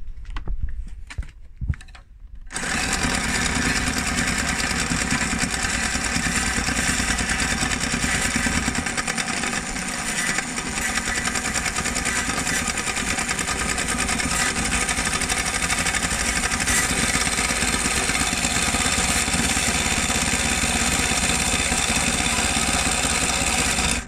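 Henry Hoover vacuum motor's armature spinning at speed, starting about two and a half seconds in and running steadily, with a flat file held against the commutator to scrape off the carbon build-up; it cuts off suddenly at the end.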